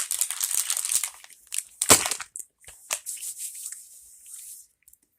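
Plastic candy bag crinkling and rustling as a hand rummages through the gummies inside, with a sharp crackle about two seconds in and another about a second later.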